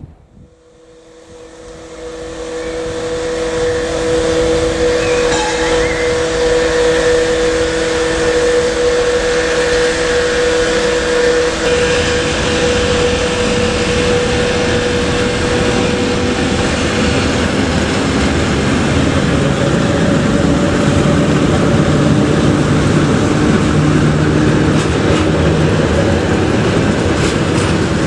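VL8M eight-axle electric locomotive with a coach behind it rolling past at speed, swelling up over the first few seconds into a steady loud rumble. A steady two-tone whine rides over the rolling noise until about halfway, after which the wheel and rail noise of the passing train carries on.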